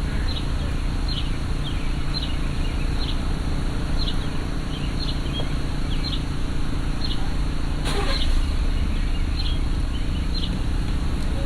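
Steady low rumble of a slowly moving vehicle, with short high chirps repeating about once a second and a single sharp click about eight seconds in.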